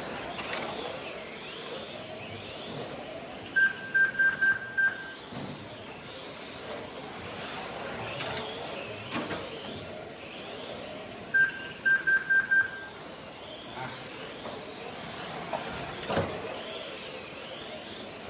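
GT12 1/12-scale electric RC cars running at speed, their motors whining up and down in pitch as they accelerate and brake. Twice, about eight seconds apart, a quick cluster of loud, short electronic beeps sounds from the race timing system.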